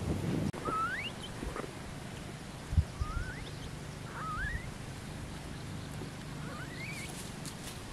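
Quail giving four short rising chirps, spaced a second or two apart. There are brief crunching footsteps on stones at the very start and a soft thump about three seconds in.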